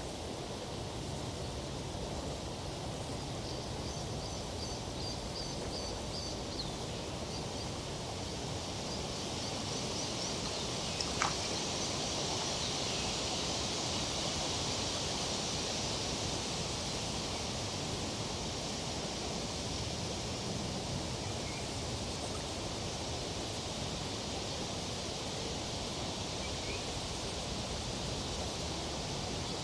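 Tree foliage rustling steadily in a summer breeze, swelling for a few seconds about a third of the way in, over a low wash of flowing river water. A few faint bird chirps and one short, sharp call come about eleven seconds in.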